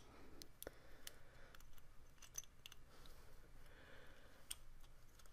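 Faint, scattered clicks and light handling of the small metal and plastic parts of a 28BYJ-48 stepper motor as its coil stack is fitted back into the housing by hand.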